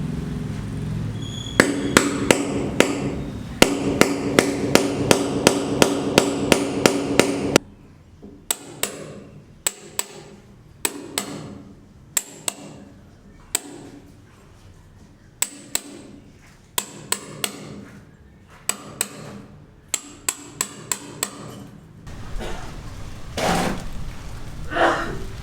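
Hammer blows on a building site: a steady run of strikes at about two a second, then short bursts of a few strikes separated by pauses.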